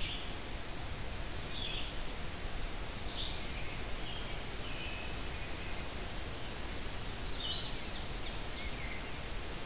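Forest ambience through a trail camera's microphone: a steady hiss with short bird calls and song phrases several times, one a falling note about three seconds in.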